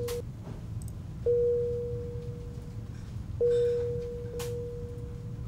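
Electronic alert chime: a single pure mid-pitched tone that sounds twice, about two seconds apart, each note starting sharply and fading slowly, over a low steady room hum.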